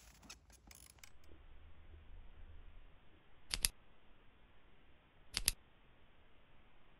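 Two sharp double mouse-clicks, about two seconds apart, from a subscribe-button animation, over a faint steady background hiss. A quick run of shutter-like clicks comes right at the start.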